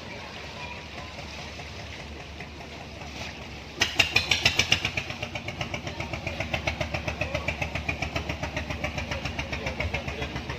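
A small boat engine starts abruptly about four seconds in and settles into an even running beat of about seven pulses a second.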